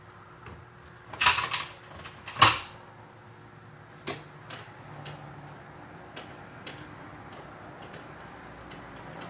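Two loud clatters of parts being handled, then a slow series of light clicks, about two a second, from a ratchet tightening the steering-wheel centre bolt of a BMW E46.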